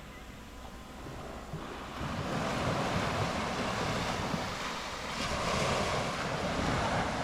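Sea waves washing onto a sandy beach, the surf swelling louder about two seconds in, with wind buffeting the microphone.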